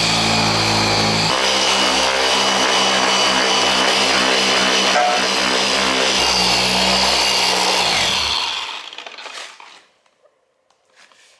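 Corded variable-speed electric polisher with a wool buffing pad running steadily as it buffs compound into oxidised fibreglass gel coat, its pitch shifting slightly about a second in. About eight seconds in it is switched off and winds down, leaving only a few faint rubbing taps.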